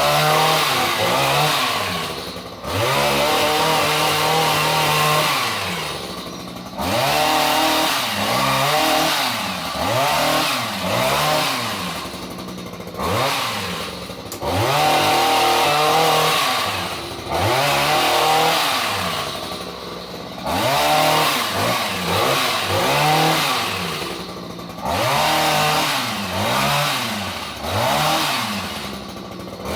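Chainsaw cutting tree branches, its engine revving up and dropping back over and over, the pitch rising and falling every second or two.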